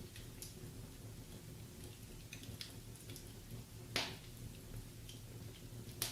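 Wood fire in a fireplace crackling: scattered sharp pops and snaps, the loudest about four seconds in, over a low steady background of the burning fire.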